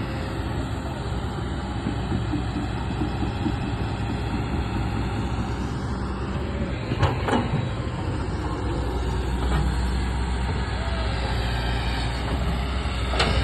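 Excavator diesel engine running steadily, with a sharp knock about halfway through and another near the end.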